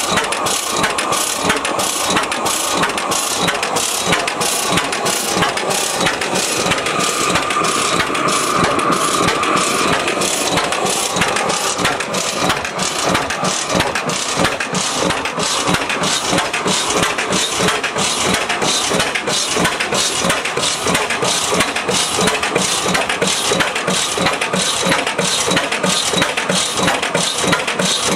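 1905 Reid 15-horsepower two-cycle hot-tube oilfield engine running steadily, its exhaust beats coming in an even rhythm.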